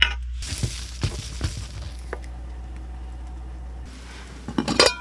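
Camp cookware handled on a wooden camp table: a few light knocks as a cup and small items are set down, then a louder clatter near the end as a metal pot lid or plate is put down, ringing briefly.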